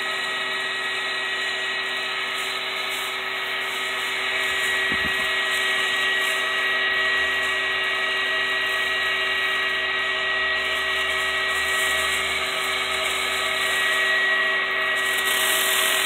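Small 12-volt bilge blower fan of a homemade ice-chest air conditioner running steadily, a constant motor whine with air blowing through its safety screens.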